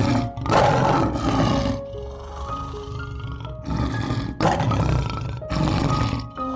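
A large animal giving about five loud, rough roars, each a second or so long with short gaps between, over background music of mallet-like notes.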